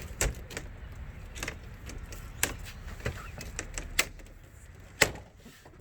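Scattered sharp clicks and knocks, about one a second, over a faint low rumble: handling noise as someone climbs into a vehicle.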